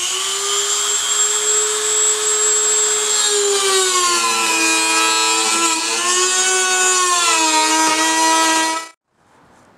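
Dremel rotary tool with a cutting wheel running at a high, steady whine while cutting through plastic. From about three and a half seconds in, its pitch sags and wavers as it cuts, and the motor stops shortly before the end.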